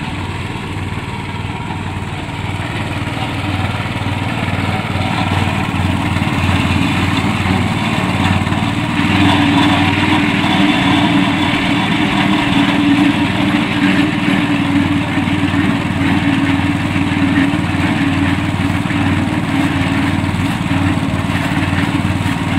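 Portable drum concrete mixer running: its small engine hums steadily while the drum turns a batch of concrete. It grows louder about nine seconds in.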